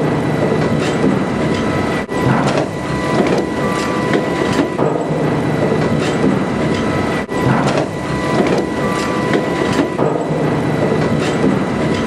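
Sawmill log debarker running as a log is fed through: a loud, continuous mechanical clatter with irregular knocks and a constant high whine.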